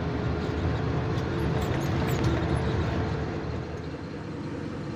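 Diesel engine of a coal-hauling dump truck running steadily as it drives along a haul road, heard from inside the cab, easing off slightly near the end.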